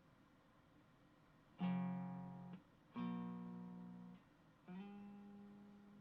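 Electric guitar, a Stratocaster's neck single-coil pickup through an Xotic Effects SL Drive overdrive pedal into an Orange Micro Dark amp. Three chords are struck one at a time, the first about a second and a half in, each ringing out for about a second.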